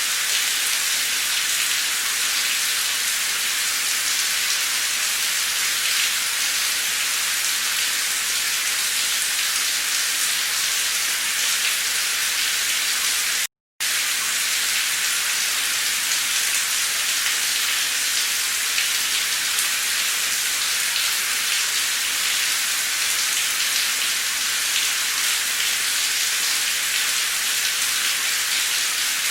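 Heavy, torrential rain pouring down as a steady, even hiss, with a brief cut to silence about halfway through.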